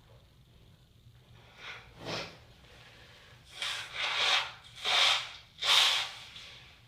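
Noisy breaths forced through the nose of a woman with a head cold, right after a sneeze: two short ones, then three longer, louder ones.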